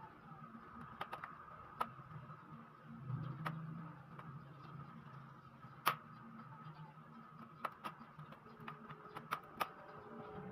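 Scattered sharp plastic clicks and snaps as the bottom cover of a Lenovo IdeaPad 110-14IBR laptop is unscrewed and pried loose, its snap clips letting go one after another, loudest about six seconds in and several in quick succession near the end. A steady hum runs underneath.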